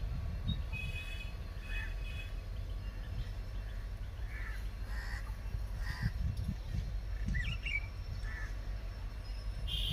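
Crows cawing several times, with small birds chirping, over a steady low rumble.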